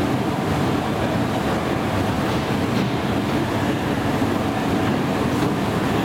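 A 1964 Asea-Graham escalator with its original steps running, a steady mechanical noise with a few faint ticks.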